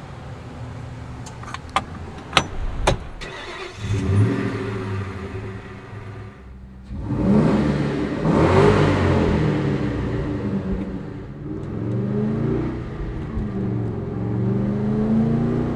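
A few sharp clicks from the steering wheel's quick-release hub. About four seconds in, a Ford Mustang Cobra V8 starts and idles through its JBA cat-back exhaust, then is revved up and down several times in the second half.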